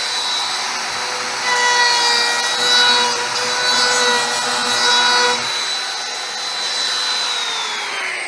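Trim router with a 1/4-inch roundover bit running at full speed, louder for about four seconds while the bit cuts a roundover along the edge of white PVC foam board. Near the end it is switched off and its whine falls as the motor spins down.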